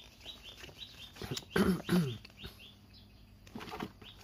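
A small bird chirping in a steady series of short, quick, downward notes, about three a second. About a second and a half in come two louder, lower calls.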